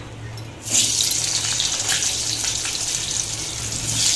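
Cut potato pieces going into hot oil in a kadai with dried red chillies and cumin, setting off a loud, steady sizzle that starts suddenly about a second in. A low hum runs underneath.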